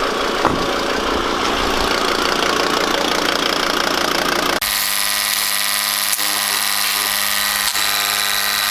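SsangYong Musso engine running with a whistle from the turbo side, the symptom later traced to an intake leak at the EGR valve gasket. About halfway through the sound changes abruptly to a steadier, evenly pitched hum.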